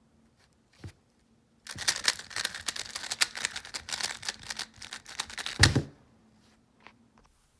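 3x3 puzzle cube being turned quickly by hand, its plastic layers clicking and clacking in a dense, rapid run for about four seconds from roughly two seconds in, with one louder knock near the end.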